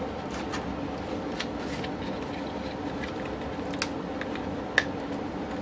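Cardboard box and foam packaging being handled to free a pair of pliers: soft rustles and scattered light clicks, with one sharper click near the end, over a steady background hum.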